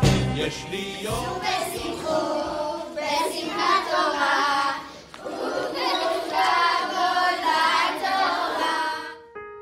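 A group of children singing a song together. Near the end the singing stops and piano music begins.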